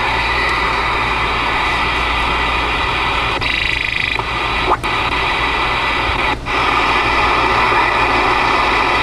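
Steady band static from the Ranger RCI-2950DX ten-meter radio's speaker as the receiver is tuned across frequencies, broken twice by short dropouts near the middle as the frequency steps.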